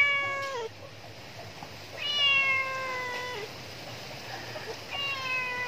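An animal's long, drawn-out pitched calls, three of them, each falling slightly in pitch and dropping off at the end, about two and a half seconds apart.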